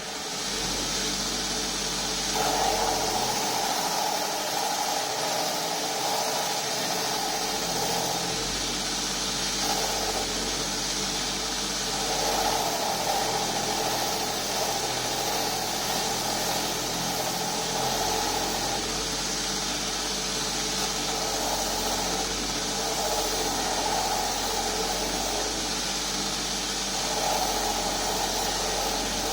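Power grinder running steadily while a handle blank is pressed against it for freehand rough shaping; it comes up to speed at the very start, and the grinding noise grows louder and brighter in stretches of a few seconds as the work is pressed on.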